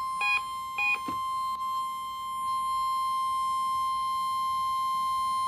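NOAA Weather Radio test signal from station KWO35. The last short bursts of the digital alert header come in the first second, then the steady single-pitch warning alarm tone holds through the rest.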